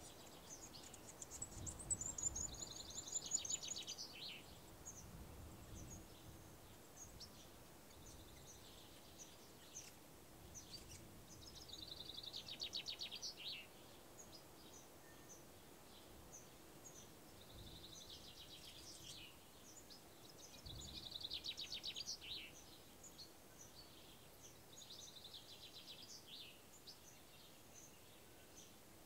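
Birds singing in short phrases of rapid trilled notes and falling sweeps, repeated every several seconds, over a faint low background rumble.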